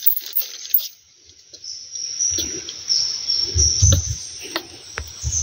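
Steady high-pitched drone of forest insects. Over it come three bursts of low thumps and rustling from movement close to the microphone, and a few sharp clicks.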